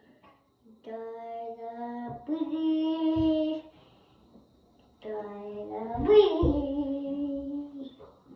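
A child singing wordlessly, in two phrases of long held notes with a short pause between them.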